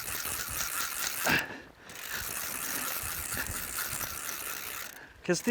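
A conventional drum-type fishing reel being cranked fast, its gears giving a steady clicking whir, as a hooked fish is fought and reeled in, with wind noise on the microphone.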